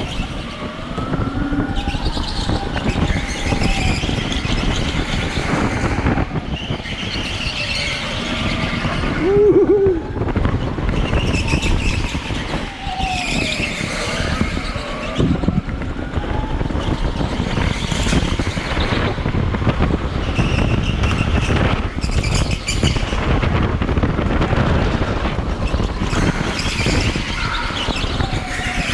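Electric go-kart driven hard at speed: tyres squeal through the corners over a steady rumble of the wheels on a bumpy concrete floor, with high whining tones that rise and fall. A short sharp squeal comes about a third of the way in.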